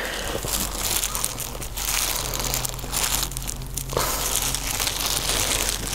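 Thin plastic poop bag, worn over a hand like a glove, crinkling and rustling almost continuously as the hand scoops dog poop off the ground, with a short lull a little past three seconds in.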